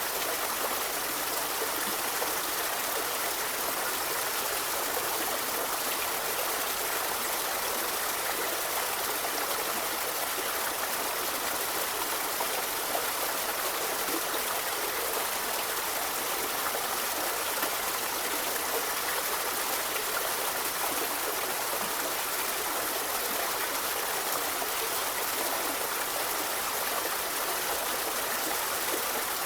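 Forest river flowing steadily: an even, continuous rushing of water over stones.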